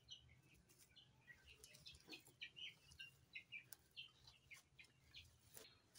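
Faint bird chirping: many short, high chirps in quick, irregular succession, with a few soft clicks.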